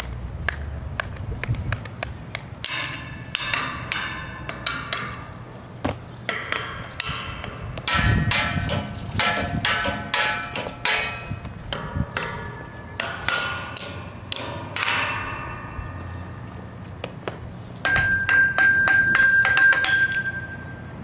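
Background music made of short struck and plucked notes with percussive clicks, ending in a held high note.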